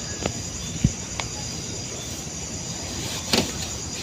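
Crickets chirping steadily in the dark, with a few short knocks and clicks close by.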